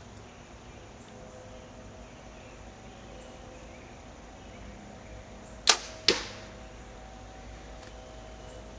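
Bear Cruzer G2 compound bow shooting a field-point arrow: a sharp snap as the string is released, then a second sharp hit a fraction of a second later as the arrow strikes the target.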